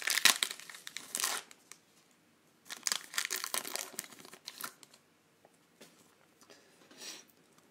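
Trading-card pack wrapper crinkling and tearing as it is opened by hand, in two spells of crackling, the second starting nearly three seconds in.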